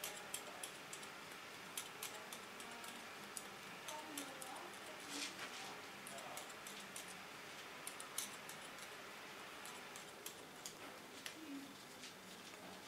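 Hairdressing scissors snipping short hair lifted on a comb: faint, irregular clicks.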